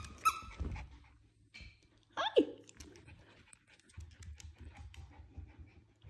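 Small dog's claws clicking and pattering on a hardwood floor as it runs about. There are two short high-pitched sounds right at the start, and a person says "hi" about two seconds in.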